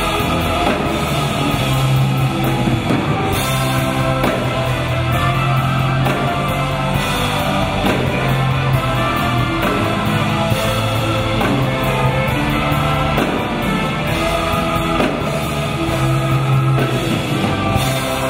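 Live rock song: electric guitars and bass guitar playing together with a folk orchestra and choir, with singing.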